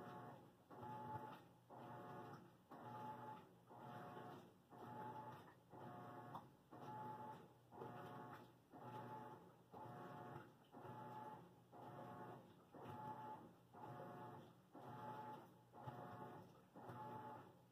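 Faint washing machine running through its cycle. A motor hum swells and fades about once a second in a steady rhythm.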